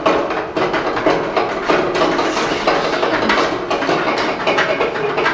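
Toilet paper being pulled hand over hand from a stainless steel jumbo-roll dispenser: a continuous rapid clatter of the roll knocking in the metal housing, with paper rustling.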